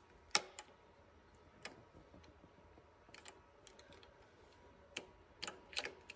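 Metal clicks and taps of the bobbin case being unlatched and the large bobbin handled in the hook of a Cowboy 105 cylinder-arm sewing machine. A sharp click comes about a third of a second in, lighter clicks are scattered through, and a quick cluster of clicks comes near the end.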